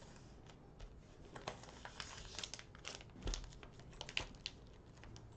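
Cellophane-wrapped trading card packs crinkling faintly as they are handled and moved about, with scattered light clicks and taps.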